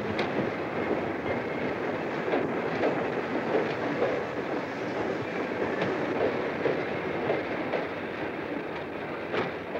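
Passenger train pulling out of the station and moving away, its wheels clacking irregularly over the rail joints over a steady rumble.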